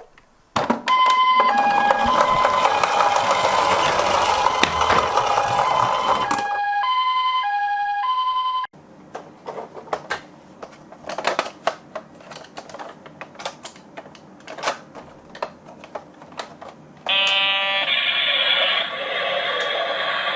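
Toy ambulance minicar's electronic two-tone siren, alternating high and low, over a loud rushing noise for the first six seconds or so; the siren goes on alone for a couple of seconds more, then stops about nine seconds in. A run of sharp clicks and knocks follows, and near the end there is a loud buzzy tone with noise.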